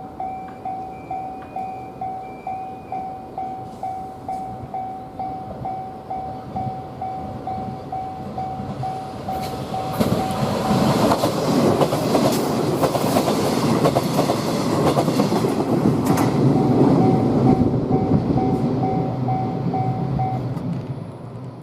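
A level-crossing alarm rings about twice a second. About ten seconds in, a 381 series electric limited express arrives and passes close by for about ten seconds, loud, with its wheels clacking over the rail joints and drowning the bell. The bell stops near the end as the train moves away.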